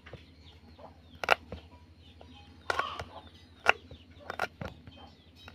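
A kitchen knife chopping shallots on a wooden cutting board: a handful of sharp, irregular knocks of the blade striking the wood.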